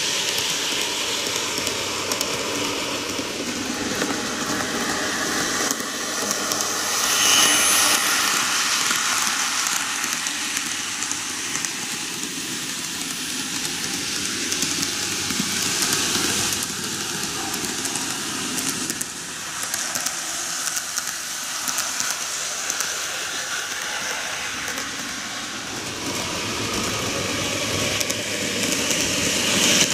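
N-gauge model trains running on sectional track: a steady rattle of fine clicks from wheels on the rails. It swells about seven seconds in and again near the end, as a train comes close.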